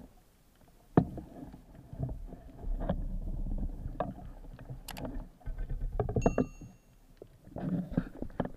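Underwater water noise and handling sounds from a spearfishing diver's gear: sloshing and rumbling water with sharp knocks and clicks as the speargun and its line move against the underwater camera. A brief high tone sounds about six seconds in.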